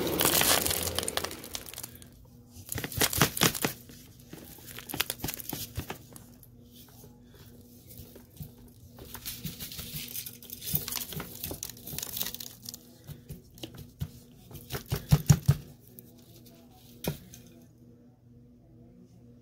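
A Eureka Airspeed Compact vacuum cleaner winds down in the first second or two after being switched off. Then come scattered crackling, crinkling rustles and small clicks from loose debris, in irregular clusters, fading to near quiet near the end.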